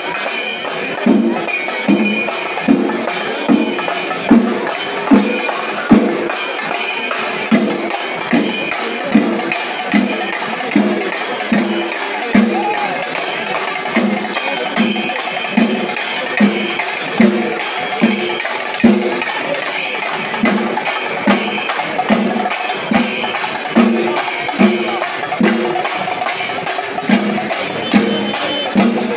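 Singarimelam percussion ensemble playing: chenda drums beat a steady, strong pulse a little faster than once a second, under a dense, fast clashing of elathalam hand cymbals.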